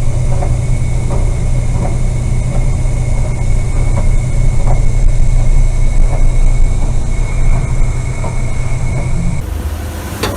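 A fishing boat's engine drones steadily and heavily under a faint steady whine, with scattered knocks and creaks. The sound changes abruptly near the end.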